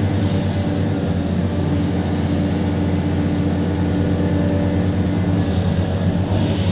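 Large diesel engine of heavy earthmoving machinery running steadily with a deep drone, its tone shifting about five seconds in.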